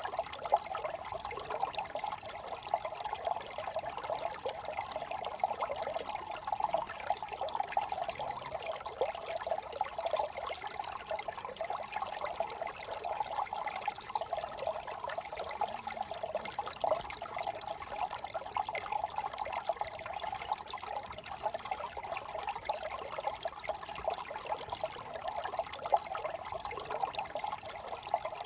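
A small brook trickling and babbling steadily over stones, with a continuous light bubbling.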